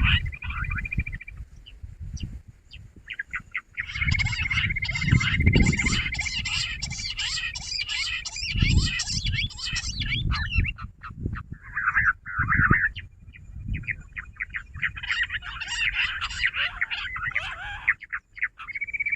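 Jungle bush quail calling in bursts of rapid chattering notes, with a steady high whistle running under parts of it and low rumbling noise beneath. The calling pauses briefly about 2 seconds in and again near the middle.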